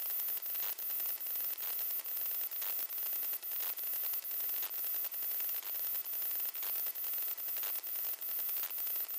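Steady electronic hiss from a digital night-vision scope's built-in recording, with faint regular ticks about twice a second.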